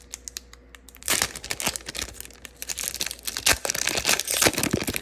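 Foil Magic: The Gathering booster pack wrapper crinkling and tearing as it is ripped open by hand. The dense run of crackles starts about a second in.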